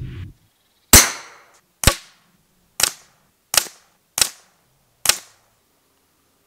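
FX Panthera .25-calibre pre-charged pneumatic air rifle firing six sharp shots in about four seconds; the first is the loudest and rings on longest.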